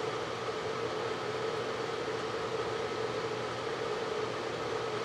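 Steady background hiss with a constant hum, unchanging throughout, like a running fan or similar machine.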